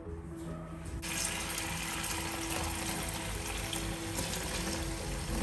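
Kitchen tap turned on about a second in, water running steadily into the sink, over background music.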